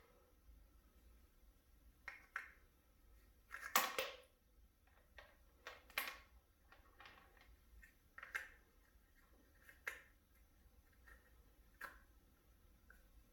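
Oil-soaked hydraulic roller lifters being pushed one at a time into a plastic lifter tray: faint, sharp clicks and clacks every second or two, the loudest about four and six seconds in.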